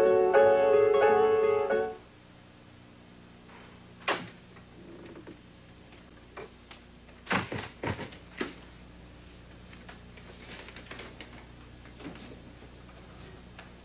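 A short TV station ID jingle with held chords ends about two seconds in. It is followed by a quiet room with a handful of scattered knocks and thuds, most of them close together a little past the middle.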